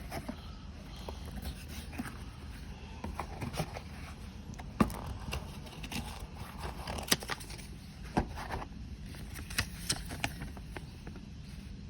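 Scattered clicks, taps and light knocks from a boxed multitool and its packaging being handled and opened, over a low steady background hum. The sharpest knocks come about five and eight seconds in.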